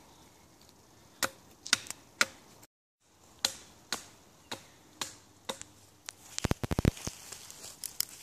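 Hatchet chopping a wooden stake against a stump, sharpening its point. The blows are sharp and come about two a second, with a brief break. A quick clatter of rapid knocks follows near the end.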